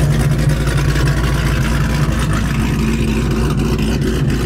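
C7 Corvette Grand Sport's 6.2-litre LT1 V8 idling loud with a choppy, uneven lope, the sign of an aggressive aftermarket camshaft.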